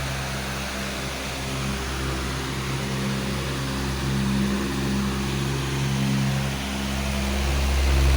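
Powerful electric fan running steadily: a low motor hum with a few steady tones under an even rush of air.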